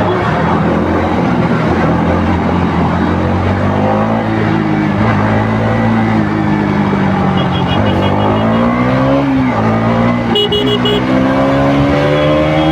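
KTM RC 200's single-cylinder engine on its stock exhaust, running under way with the engine note wavering. Past the middle the revs climb, drop sharply, then climb again toward the end.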